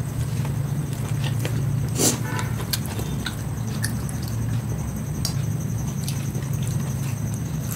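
A person eating rice and chicken by hand, with chewing and scattered small clicks and smacks, the sharpest about two seconds in, over a steady low hum.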